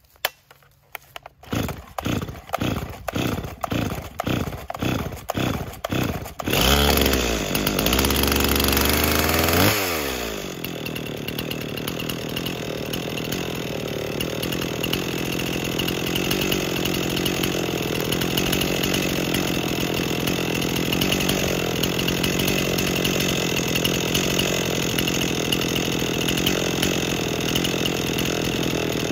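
Stihl MS260 two-stroke chainsaw being pull-started: a quick run of cord pulls, about two a second, until it catches about six seconds in. It runs loud and fast for about three seconds, then falls in pitch and settles into a steady idle.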